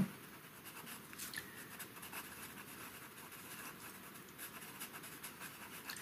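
Faber-Castell Pitt pastel pencil scratching faintly on pastel paper as colour is shaded on in short strokes.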